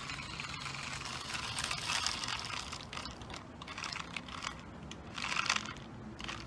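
Toy RC car with a papier-mache body driving about, its small electric motor and wheels making a rasping whir that comes and goes in uneven spurts.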